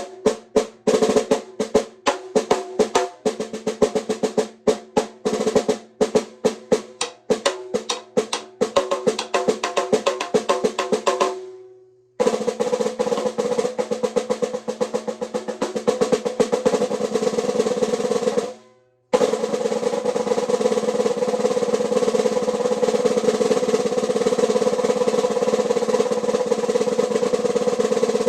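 Birdseye maple stave snare drum played: separate strokes and short patterns with ringing decay for the first half, then dense sustained rolls, broken by a brief stop about two thirds of the way through.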